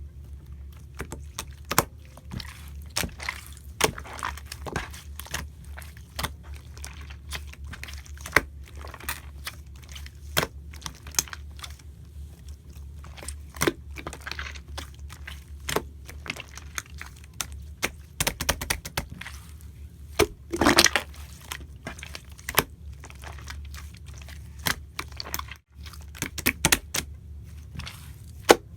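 Slime being squished, folded and coiled by hand: an irregular run of sharp clicks and wet pops, with a louder, longer crackle about two-thirds of the way through, over a low steady hum.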